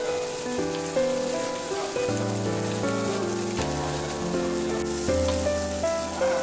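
Background piano music with slow, steady notes, over a steady hiss of pork sizzling on a grill plate.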